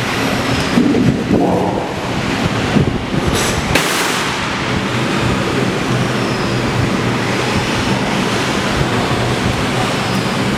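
CNC plasma cutting machine's torch arc hissing steadily through steel plate, with a sharp crack about four seconds in.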